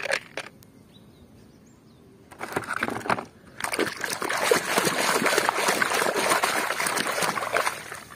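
Hands splashing and sloshing water while scrubbing a mud-covered plastic toy, with a few clicks and clatters of plastic first, then steady splashing from about three and a half seconds in.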